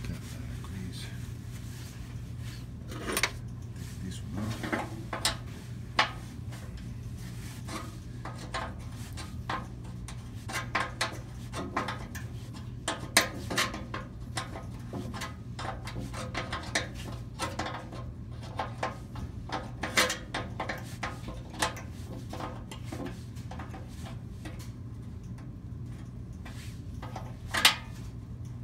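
Irregular metallic clinks, taps and knocks of hands and an open-end wrench on the sheet-metal furnace blower housing and its bearing bracket as the bracket bolts are worked. A steady low hum runs underneath.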